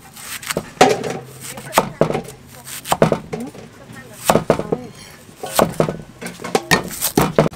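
Cleaver chopping an onion on a wooden chopping block: sharp knocks of the blade striking the wood at an uneven pace.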